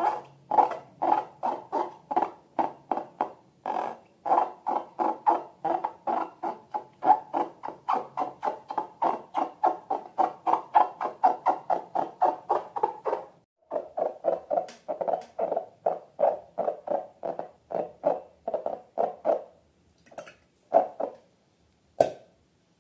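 Slime being squeezed and worked by hand, making short, rhythmic squelching pops at about three to four a second; the rhythm slows to a few scattered squelches near the end.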